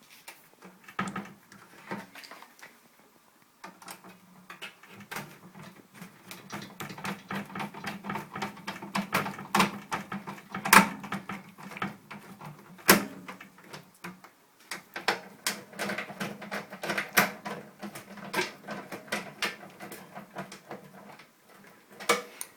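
Hand screwdriver driving a screw back into a microwave's sheet-metal casing: a dense run of irregular metallic clicks and scrapes, with a low steady hum beneath much of it.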